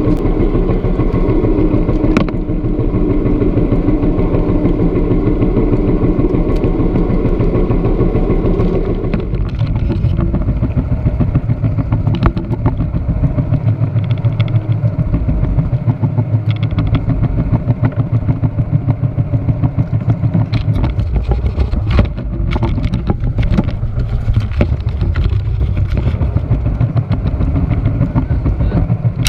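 A boat's engine running steadily. About nine seconds in its note drops to a lower, pulsing sound, with a few scattered knocks.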